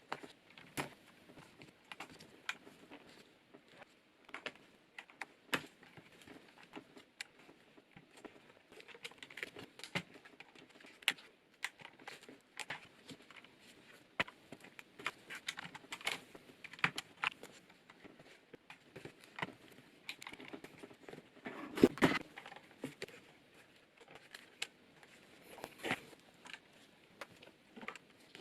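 Irregular plastic clicks and taps of keycaps being handled and pressed onto a Corsair K70 mechanical keyboard's Cherry MX Brown switches, with one louder knock about three-quarters of the way through.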